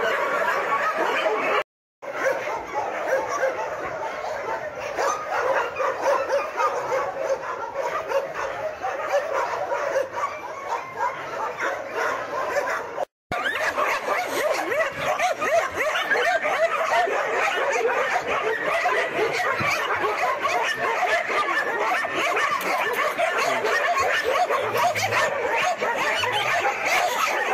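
Many dogs barking and yelping at once in a dense, continuous din, cutting out completely for an instant twice.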